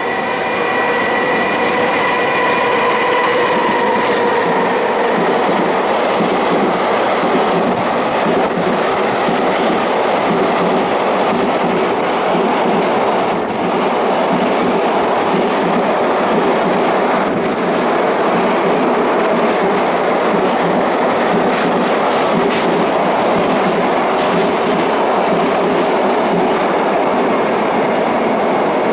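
JR Freight EF210 'Momotaro' electric locomotive and its container freight train passing close by: a whine from the locomotive in the first few seconds, then the steady rumble and clickety-clack of the container wagons' wheels over the rails.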